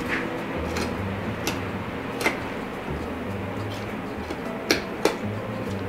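A butcher knife ticking sharply against bone and cutting board as it cuts along a javelina's spine, a handful of irregular clicks with the loudest a little over two seconds in and two close together near the end. Soft background music runs underneath.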